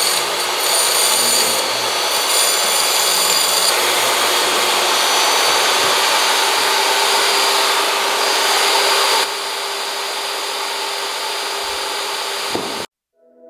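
Jobsite table saw running while ripping foam board insulation: a steady motor whine under a hissing cutting noise. It drops to a quieter run about nine seconds in and cuts off suddenly near the end.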